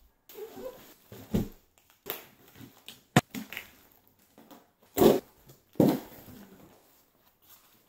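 Cardboard packaging being ripped open and pulled apart by hand: a series of irregular tearing and crumpling noises, with the two loudest rips close together past the middle.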